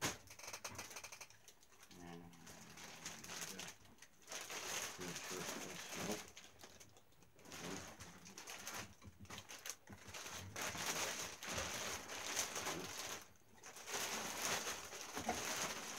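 Thin clear plastic wrapping rustling and crinkling in irregular bursts as it is handled and pulled off a replica championship belt.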